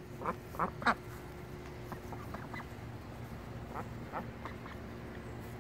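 Young ducks quacking: three loud quacks in quick succession in the first second, then scattered softer quacks.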